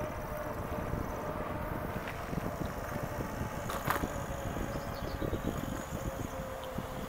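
E-bike riding with wind buffeting the microphone and a steady motor whine that sinks slightly in pitch toward the end. A single sharp click about four seconds in.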